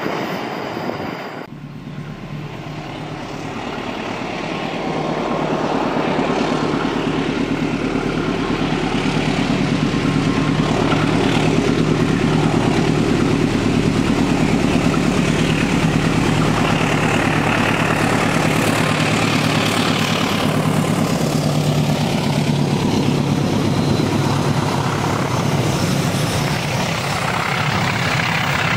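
Diesel locomotive of a passenger train running as it approaches on curving track. Its engine drone grows louder over the first few seconds and then holds steady, over the rush and rumble of the train moving on the rails.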